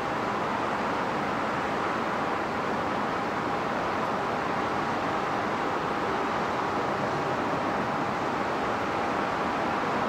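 Airbus A319-131 on final approach, its IAE V2500 jet engines a steady distant rushing roar with a faint thin whine, growing slowly louder.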